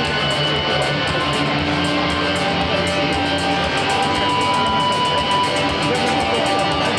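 Loud music with a steady beat from the event's DJ sound system.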